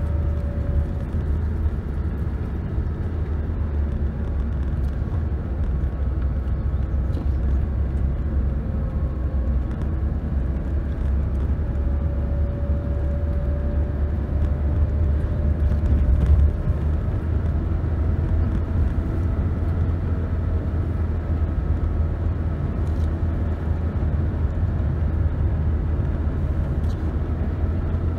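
Car driving along a paved road, heard from inside the cabin: a steady low rumble of engine and tyres, with a faint engine hum that drifts slowly up and down in pitch and an occasional faint tick.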